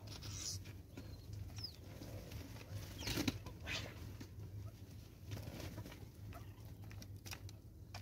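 Helmeted guineafowl moving about and pecking at a plastic-bottle seed feeder: scattered rustles and light taps, with a louder scuffle about three seconds in and a cluster of taps near the end. A brief high chirp comes about a second and a half in, over a steady low hum.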